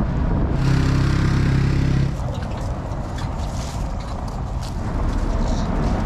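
Car driving over a cobbled street: a steady engine hum for about a second and a half near the start, then rough, even noise with scattered clicks.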